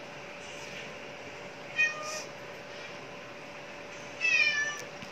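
A domestic cat meowing twice: a short meow about two seconds in and a longer, slightly falling meow near the end.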